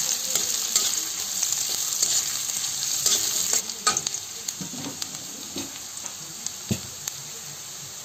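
Sliced onions sizzling in hot oil in a steel wok, with a metal spatula scraping and clicking against the pan as they are stirred. The sizzle drops noticeably about three and a half seconds in.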